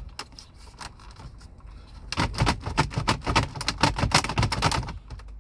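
Plastic dashboard trim bezel around the radio clicking and rattling in a quick irregular run while it is pulled and pried, starting about two seconds in. The panel will not come free because two screws under the radio still hold it.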